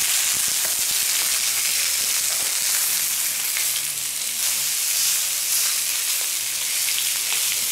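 Wild duck breasts sizzling steadily on a hot steel fire plate, with a few faint clicks as they are turned with wooden tongs.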